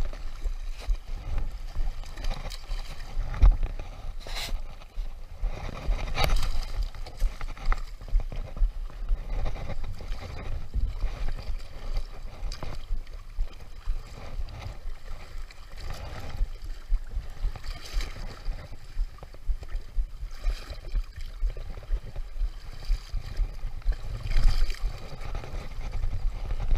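Wind rumbling on the microphone over shallow seawater washing against rocks, with irregular splashing as a hooked snook thrashes in the water at the angler's feet.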